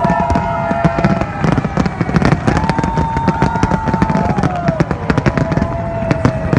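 Fireworks display: rapid crackling bangs and pops, densest about two seconds in, over a low rumble, with long drawn-out tones that bend slowly in pitch.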